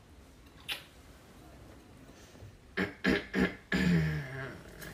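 A soft kiss smack on the cheek about a second in, then three short muffled vocal sounds and a held closed-mouth hum near the end.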